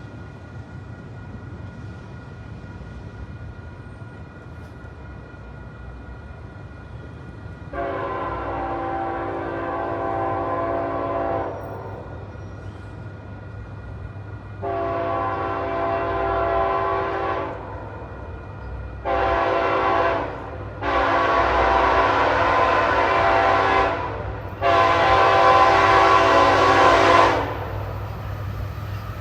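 Diesel locomotive's multi-note air horn blowing the grade-crossing signal, long, long, short, long, then another long blast, louder with each one as the train approaches, over a steady low rumble.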